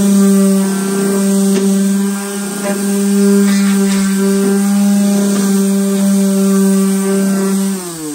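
Handheld electric power tool running at a steady speed while stripping old furniture, with a few light knocks. Near the end it is switched off and winds down, its pitch falling away.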